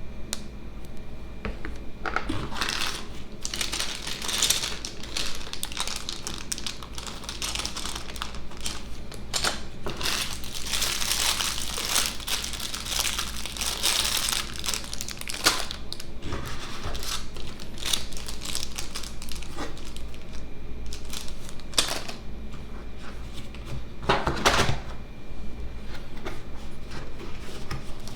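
Packaging being handled while a keyboard is unboxed: irregular crinkling and rustling of wrap and paper, with scattered clicks and knocks. The crinkling is densest in the middle, and there is one louder rustle near the end.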